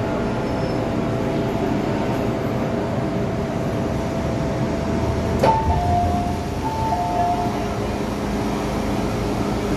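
Steady hum and rumble inside an MTR M-Train car, with a steady whine that cuts off about five and a half seconds in. A click follows, then a two-note door chime, high then low, sounds twice as the train's doors open.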